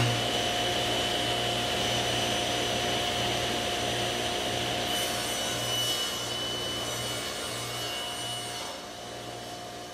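Table saw running as it cuts a plywood offcut, the blade and motor making a steady noise with a high whine through the cut. It grows quieter near the end.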